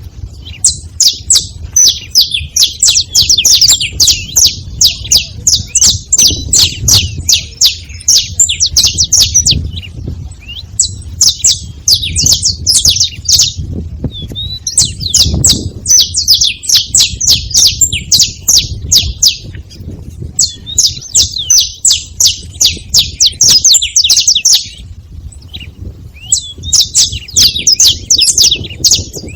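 Saffron finch calling: rapid, high chirps in long bouts broken by short pauses.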